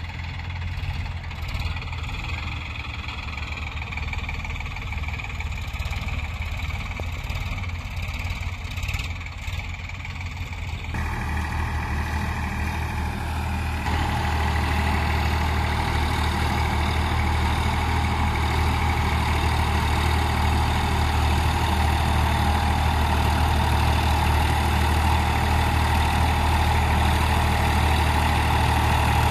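Sonalika farm tractor's diesel engine running steadily as the tractor drives up. It grows louder at about a third of the way in, and again just after, as it comes nearer.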